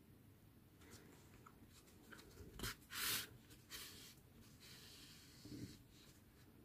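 Mostly near silence, broken by a few faint, short scratchy rustles of black yarn and a needle being drawn through a crocheted amigurumi piece, the loudest about three seconds in.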